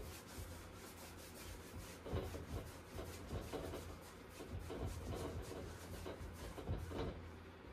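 Paintbrush scrubbing and dabbing against a large stretched canvas in irregular strokes, busier from about two seconds in.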